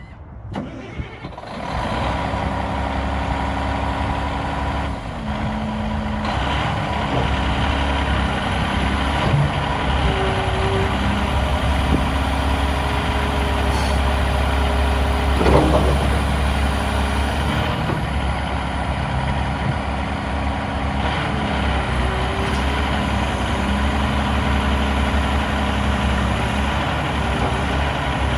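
Cat 349EL excavator's C13 diesel engine running under load, with hydraulic whine tones that step up and down in pitch as the boom, stick and bucket are worked. The engine sound comes up sharply about a second and a half in, and a single clunk is heard about halfway through.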